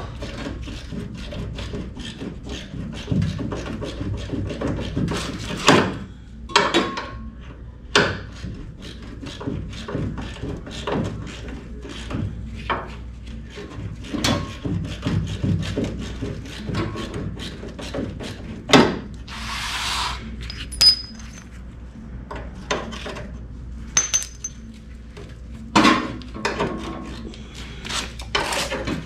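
Hand ratchet wrench clicking in quick runs while engine mount bolts are worked loose, with louder metal knocks now and then. A short hiss of about a second comes about two-thirds through.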